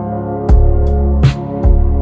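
Slowed-down dreamy pop track: sustained, reverberant guitar chords, with a slow beat of deep kicks and a sharper snare-like hit coming in about half a second in.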